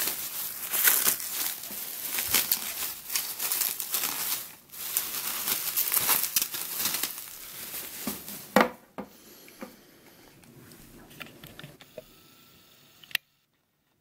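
Bubble wrap crinkling and rustling as it is pulled off a clear plastic puzzle box, for about eight seconds. Then two sharp knocks as the plastic box is handled, followed by faint handling sounds.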